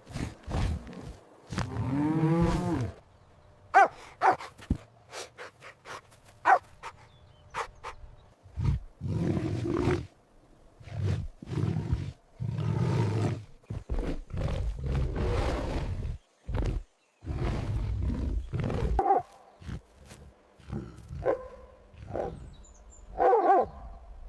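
A big cat roaring and growling again and again: a series of deep, loud calls of varying length with short pauses between them.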